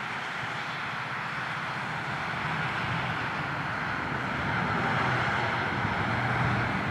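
Heavy aerial-lift truck driving by on a road with other traffic: diesel engine running under steady tyre and road noise, growing a little louder toward the end.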